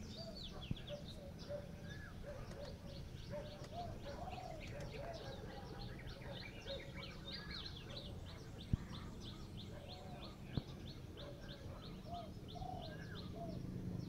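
Many small birds chirping, a rapid run of short high chirps with lower warbled notes mixed in, over a steady low background rumble. A few sharp clicks cut through, the loudest about nine seconds in.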